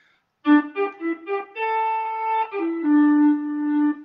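Akai EWI 5000 electronic wind instrument playing its "Twisted Flute" preset: a short phrase of a few quick notes about half a second in, then two longer held notes, the second one lower.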